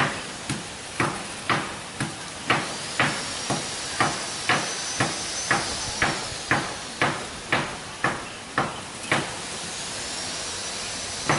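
Hammer driving nails into the wooden planks of a boat's cabin side, with steady blows about two a second. The blows pause about nine seconds in, and one more comes near the end.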